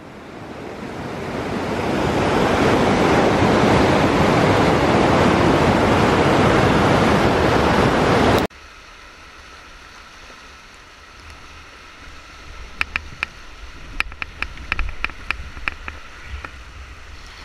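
Whitewater rapids rushing loudly, building over the first couple of seconds. About eight seconds in the sound cuts abruptly to quieter running river water around a kayak, with a run of sharp knocks and clicks in the last few seconds.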